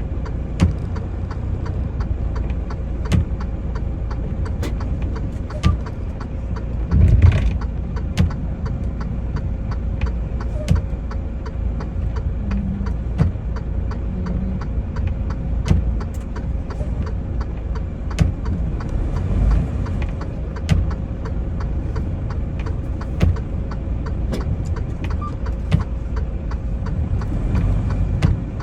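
Semi truck's engine running steadily, heard from inside the cab, with scattered light clicks and a louder knock about seven seconds in.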